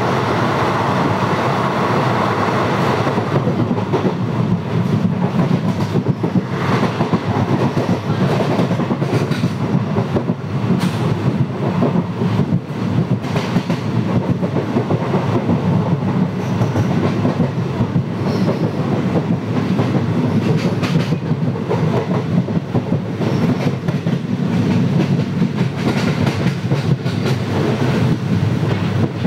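Express passenger coach running at speed, heard at a coach window: a steady rumble with the clickety-clack of the wheels on the rails, and a rush of air.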